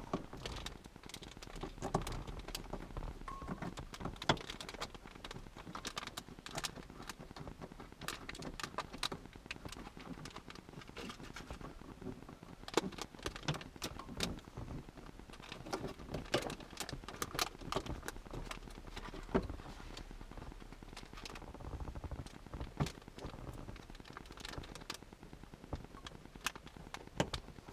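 Faint, irregular small clicks and taps of hands working on the plastic interior light fittings in a car cabin, prying at lenses and handling bulbs.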